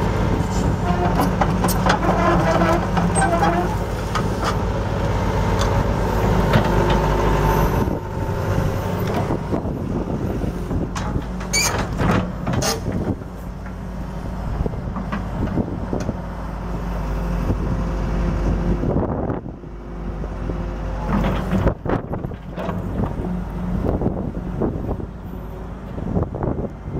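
A 1994 Hitachi EX150 excavator's Isuzu diesel engine runs steadily while its hydraulics work the boom and bucket. A steady whine sits over the engine hum until it eases off about eight seconds in, and sharp knocks come now and then from the moving arm.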